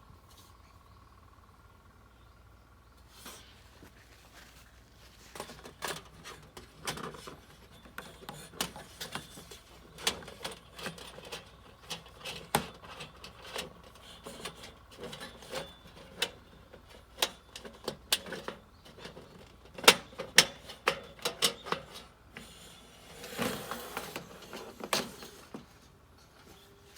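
Metal parts of a camp fire pit clinking and knocking as they are fitted together, in many sharp separate clicks that start a few seconds in. Near the end there is a short scraping rustle.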